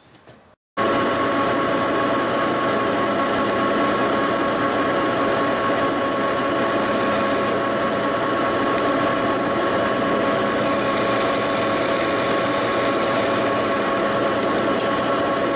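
A large 40-inch swing engine lathe running with its four-jaw chuck spinning a drive-shaft yoke. It is a steady machine drone with a constant whine from the drive, and it starts suddenly about a second in.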